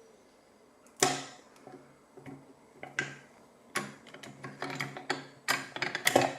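Lock pick and tension tool working in the keyway of a five-pin Iseo euro cylinder: small metal clicks and taps, a few single sharp clicks, then a quick run of clicks near the end as the last pin is worked against counter-rotation.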